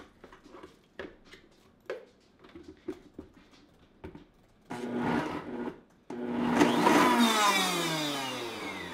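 Countertop blender blending frozen pineapple chunks, run in two short bursts about halfway through, then switched off, its motor whine falling in pitch as it winds down. The chunks are too big for it to blend smoothly. Faint knocks from handling the jar come before the motor starts.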